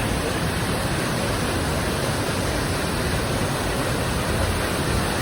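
Rushing water of a fast river and waterfall: a steady, unbroken wash of noise.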